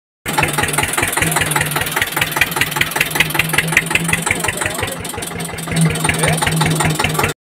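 Diesel tractor engine idling steadily, with an even, rapid beat of firing pulses.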